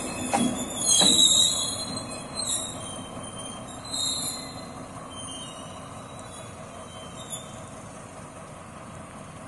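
Railway wheels squealing on the track, with a couple of knocks in the first second. The squeal is loudest about a second in, then dies away over the next few seconds, leaving a quieter steady rumble.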